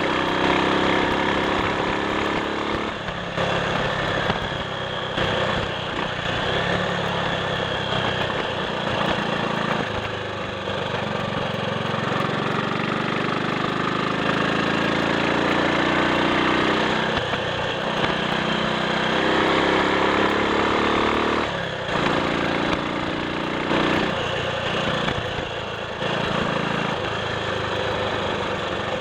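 Triumph Sports Cub's 199 cc single-cylinder four-stroke engine running on the road. Its note climbs and then drops back in brief dips several times, as it is ridden through the gears.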